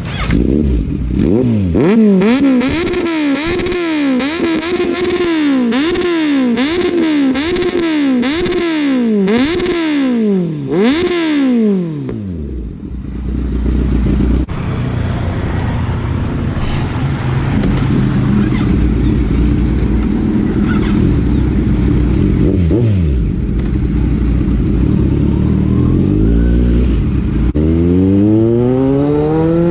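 Inline-four superbike with an aftermarket exhaust revved in quick repeated blips, about one a second, for roughly the first twelve seconds, then settling to a lower steady running note, and revving up again near the end.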